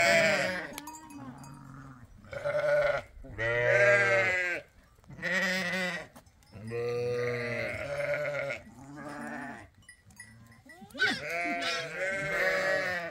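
Goats and young kids bleating over and over, one call about every second, each call wavering in pitch.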